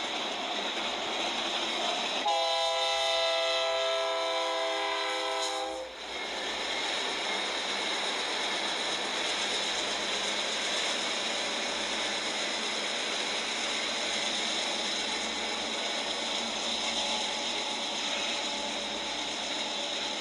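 BNSF Dash-9 freight locomotive horn sounding one long blast of about three and a half seconds, a couple of seconds in, over the steady rumble of freight trains passing. It is heard played back through a computer's speakers.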